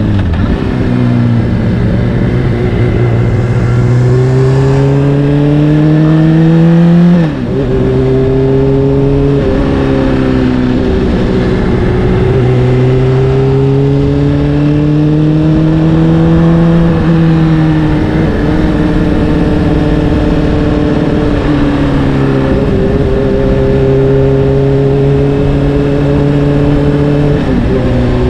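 Honda CBR600RR's inline-four engine through an Akrapovic exhaust, pulling steadily under way: the engine note climbs for several seconds, then falls sharply at each upshift, several times over. It is loudest just before the shift about seven seconds in.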